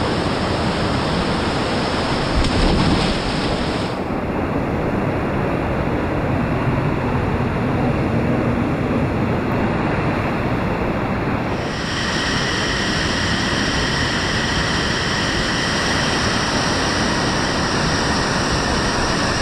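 Whitewater rapids of the Foss River rushing as a steady, loud roar of water, briefly louder about three seconds in.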